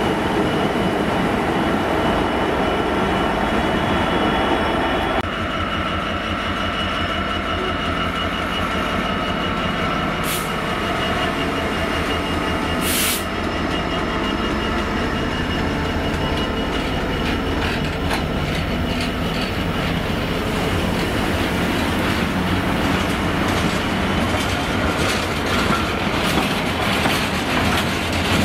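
A Class 66 diesel freight locomotive passes close by, its two-stroke V12 diesel engine running. A long train of box wagons follows, rolling by with a rhythmic clickety-clack of wheels over the rail joints and a thin, steady high squeal from the wheels.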